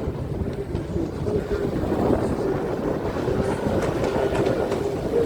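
Racing jet skis running at speed on the water, their engines making a steady drone whose pitch wavers slightly up and down.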